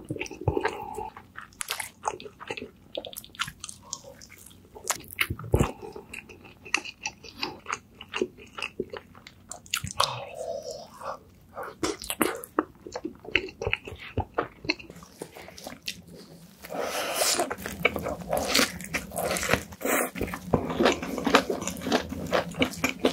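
Close-miked eating sounds of burgers being bitten into and chewed: many sharp crunches and wet, sticky chewing noises. In the last third the chewing becomes denser and more continuous as a different eater takes over.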